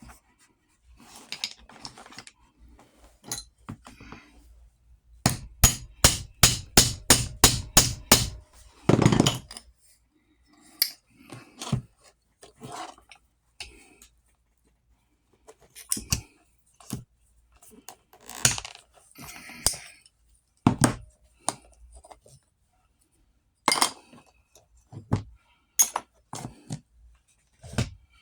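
Hand tools working on metal saddle buckle hardware: a quick run of about a dozen sharp strikes about five seconds in, then scattered knocks, taps and clinks with some scraping and handling in between.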